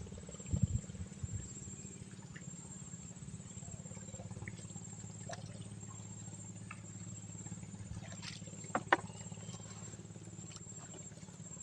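Quiet outdoor fishing ambience: a steady high-pitched insect trill pulsing over a low steady hum, with a few small knocks and clicks, the loudest just under nine seconds in.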